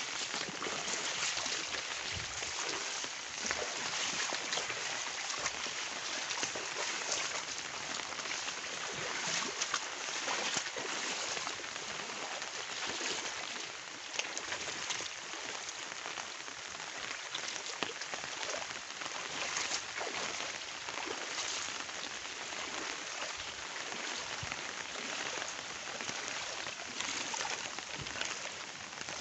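Floodwater sloshing and splashing steadily as someone wades through it, with many small splashes throughout.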